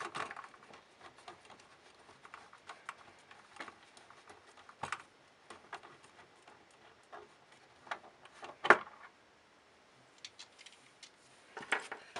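Scattered small plastic clicks and ticks as 3D-printed plastic bolts are unscrewed by hand from a plastic model brake caliper, with one sharper knock about three-quarters of the way through.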